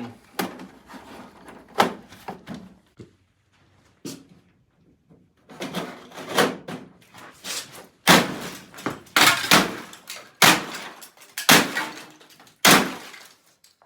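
Plastic filter and housing panels of a portable floor air conditioner being handled and fitted back into place: scraping and rattling with sharp knocks. The loudest knocks come in the second half, roughly one a second, like panels snapping or thumping into the housing.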